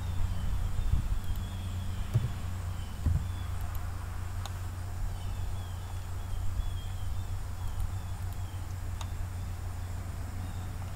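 Steady low background hum, with faint short high chirps that repeat in runs and a few sharp clicks.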